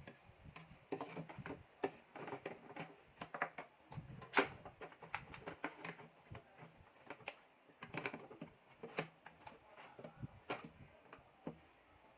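Irregular clicks, taps and light knocks of plastic and metal computer parts being handled and fitted into a desktop PC, with one sharper knock about four seconds in.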